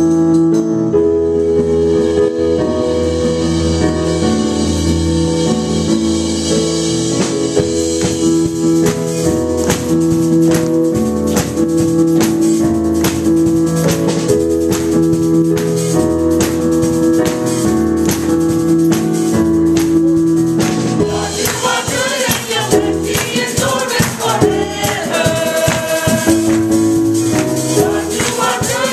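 Gospel choir song: a keyboard plays held chords over a steady percussion beat, then the choir comes in singing together about two-thirds of the way in.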